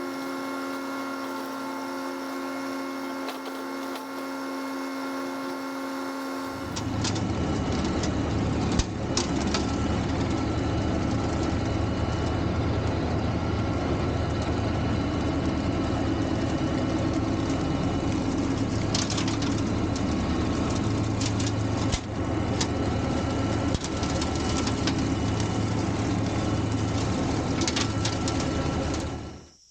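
John Deere 1025R compact tractor's diesel engine running steadily with a brush hog mowing trail brush. About seven seconds in, the sound turns louder and rougher, with scattered sharp snaps of brush and sticks. It cuts off suddenly near the end.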